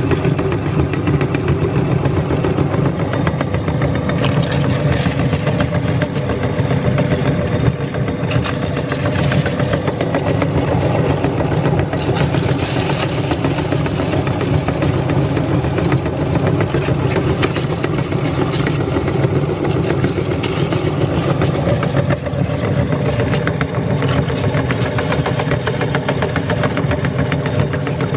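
Electric meat grinder's motor running steadily under load while crushing Bingo Mad Angles corn chips, with irregular crackling and crunching from the chips over the motor's hum.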